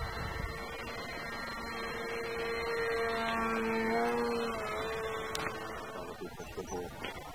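Radio-controlled model plane's motor and propeller passing overhead: a steady droning tone that grows louder to a peak about four seconds in, dips slightly in pitch as the plane goes by, then fades.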